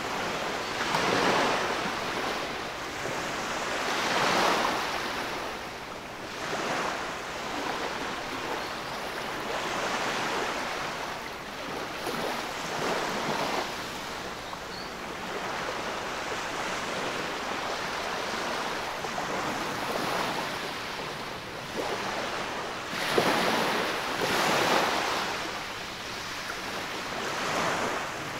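Small waves breaking and washing up over the sand at the water's edge, the foamy swash rushing in and draining back in surges every few seconds, the loudest surge near the end.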